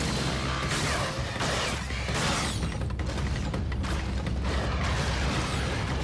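Animated sound effects of a magic ice-power attack: a continuous rush of crackling, grinding noise over a steady deep rumble.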